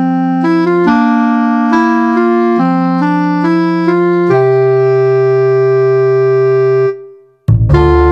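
Instrumental background music on a keyboard: chords change about once a second, then one chord is held for a few seconds. The music drops out briefly about seven seconds in, and a louder, fuller passage starts.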